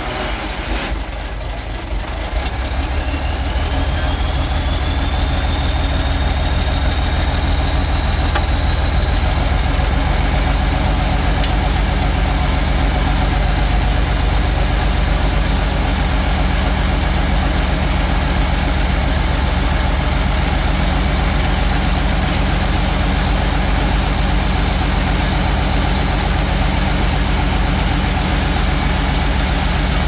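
Heavy diesel engine of road-building machinery running, growing louder about two seconds in, with a high whine that rises over a few seconds and then holds steady. A few sharp knocks in the first second or two.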